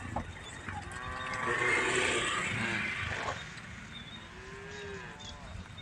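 Cows mooing: several separate drawn-out calls, with a louder, rougher stretch around two seconds in.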